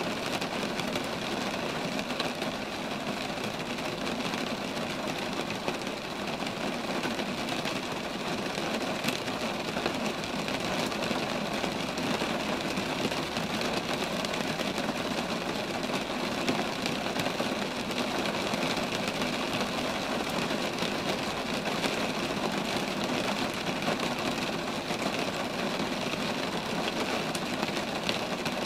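Steady rain falling on roadside trees, an even hiss with faint scattered drips ticking through it.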